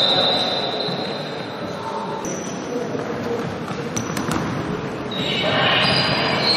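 Basketball being dribbled on a wooden court in a large echoing gym, with players' and spectators' voices that grow louder about five seconds in.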